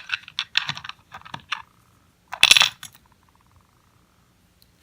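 Small metal padlock parts clicking and clinking together, with a louder metallic rattle about halfway through, as the padlock is taken apart.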